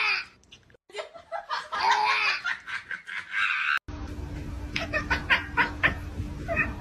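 A person laughing in several bursts. About four seconds in, the sound cuts to a steady low hum with short bits of laughter or voice over it.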